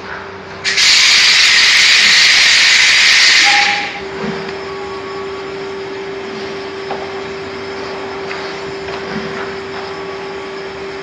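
Egg tray making machine running: a loud hiss of air starts just under a second in and stops abruptly about three seconds later, then a steady hum with one held tone goes on, with a few faint knocks.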